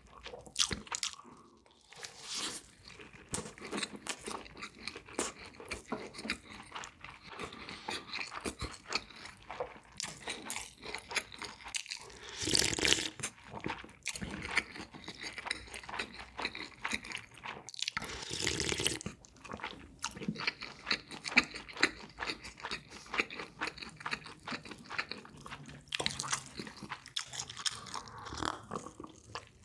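Close-miked chewing of crunchy fried food, a dense run of crackling crunches, with two louder bursts about halfway through and again a little later.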